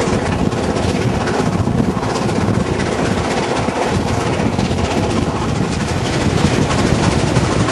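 BR Standard Class 7 'Britannia' Pacific steam locomotive running at speed, its rapid exhaust beats mixed with wheel and rail noise and wind rushing past an open coach window.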